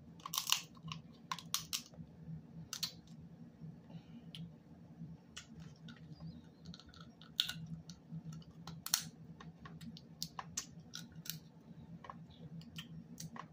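Snow crab shells cracking and snapping as they are bitten and broken apart by hand, in irregular sharp crackles over a steady low hum.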